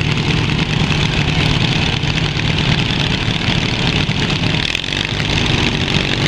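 Small single-cylinder engines of riding lawn mowers running, with a brief dip in level about three-quarters of the way through.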